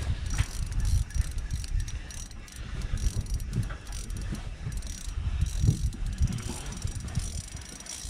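Spinning reel being cranked, a fast run of clicking and whirring from its gears, as a hooked fish is wound up on a bent rod. Low rumble of handling and wind underneath.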